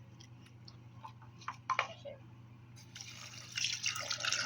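A few clicks and plastic handling noises, then about three seconds in liquid starts pouring out into a sink in a steady rush: a homemade spray of conditioner, water and soap being emptied down the drain.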